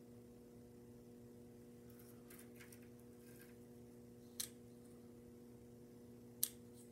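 Faint handling of small glass mosaic pieces: light scratching and rustling, then two sharp little clicks a couple of seconds apart, the second the louder, over a steady low hum.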